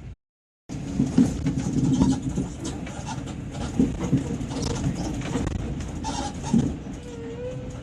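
Running vehicle noise with irregular knocks and rattles, starting after a brief dropout near the start.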